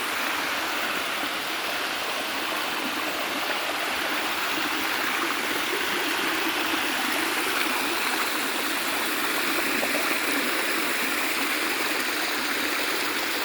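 Water of a waterfall cascading over rocks: a steady, unbroken rush.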